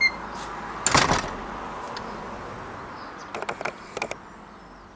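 A wooden workshop door being shut: one sharp bang about a second in, then two small clusters of quick clicks at the latch around three and a half and four seconds in, over a steady background hiss.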